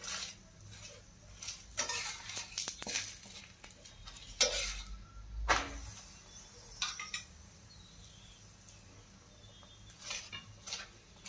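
Flat steel spatula scraping and tapping on a tawa in scattered short strokes as oil is spread over a chapati roasting on it, with a louder knock about four and a half seconds in.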